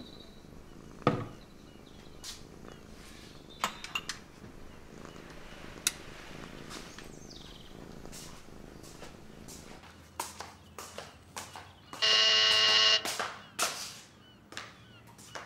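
Scattered household knocks and clicks, with a sharp knock about a second in, then a loud electric door buzzer sounding once for about a second, about twelve seconds in.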